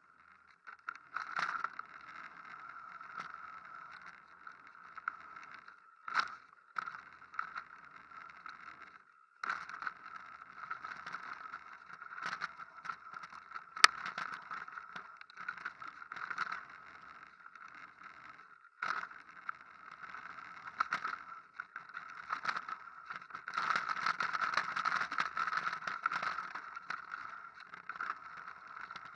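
Mountain bike riding fast down a rocky gravel trail, heard through a handlebar-mounted camera: a steady rattling rush of tyres on loose stones and the bike shaking, with sharp knocks as the wheels hit rocks and bumps. It goes briefly quiet twice and is loudest and roughest near the end.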